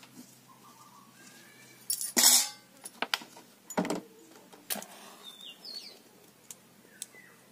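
A steel cooking pan set down on the ground with a clatter about two seconds in, followed by several sharper knocks and clinks as utensils, a plastic bottle and jars are put down and dry sticks are pushed into a clay stove. A few short chirps near the end.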